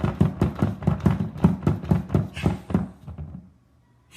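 A rapid, even run of thumps, about five a second, that stops about three seconds in.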